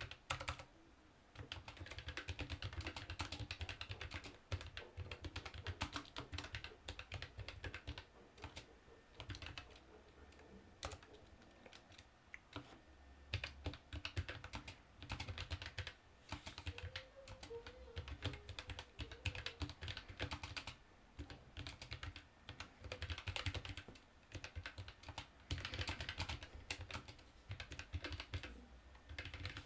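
Typing on a Keychron K1 low-profile mechanical keyboard with Gateron brown switches: quick runs of key clicks with short pauses between them.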